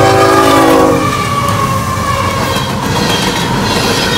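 CSX coal train led by GE ES44AH locomotives at a grade crossing: the locomotive horn's chord cuts off about a second in, then the loaded coal hopper cars rumble and rattle past close by.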